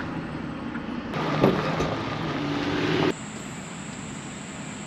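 Steady road and engine noise heard inside a Ford pickup's cab while driving. About three seconds in, it gives way to a quieter, even outdoor background.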